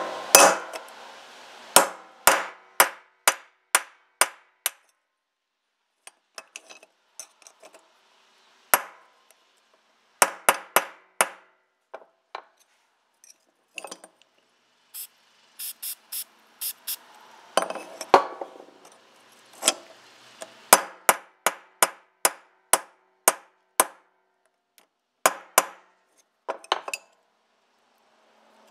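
Hammer striking metal in runs of sharp taps, about two a second, with short pauses between the runs.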